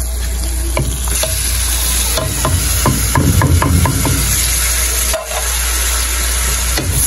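Mutton sizzling as it fries in a metal karahi, with a wooden spatula scraping and knocking against the pan many times while chopped tomatoes and green chillies are added and stirred in. A steady low hum runs underneath.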